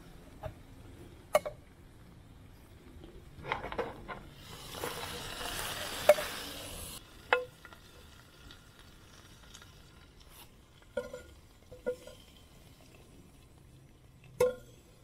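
Clinks and knocks of a metal knife and a tin can, then about two and a half seconds of hot-pan sizzling that stops sharply. Scattered light knocks and taps follow as cooked pork slices are laid on the bread.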